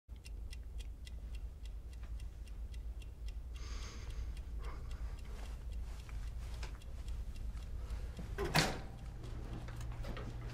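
Mechanical desk clock ticking evenly, about four ticks a second, over a low steady hum. A single louder knock comes near the end.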